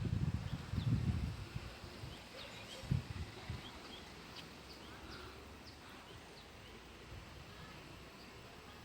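Wild birds chirping in the forest, many short high calls repeated throughout. A low rumble fills the first second and a half, and a single thump comes near three seconds.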